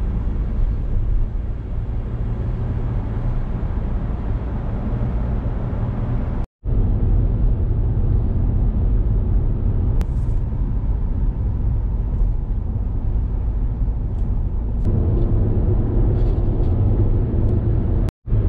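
Steady low rumble of a car's engine and tyres on the road, heard from inside the cabin while driving. The sound cuts out for a moment twice, about six seconds in and near the end.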